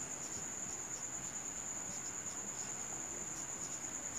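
A cricket trilling steadily at a high pitch, with faint short scratches of a marker writing on a whiteboard.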